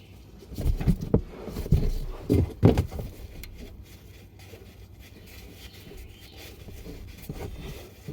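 A quick series of dull, low thumps and knocks over about two seconds, then only faint handling noise: parts and tools being handled and set down during an oil change.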